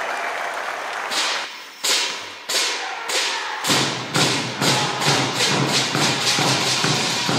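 Korean traditional percussion: applause dying away, then ringing metal crashes like hand cymbals that start slow and quicken, with drum strokes joining about halfway through into a fast steady beat.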